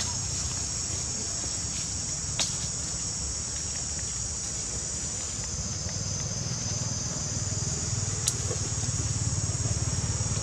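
Steady, high-pitched insect chorus, with a low rumble underneath and two brief sharp clicks, about two and eight seconds in.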